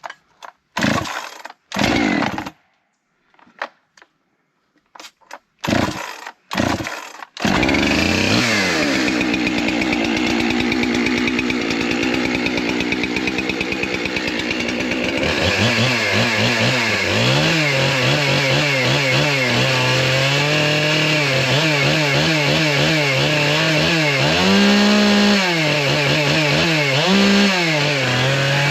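Large two-stroke chainsaw with a spark-screen muffler being pull-started: several short bursts from rope pulls, then the engine catches about seven seconds in and keeps running. In the second half its speed rises and falls several times as the throttle is worked.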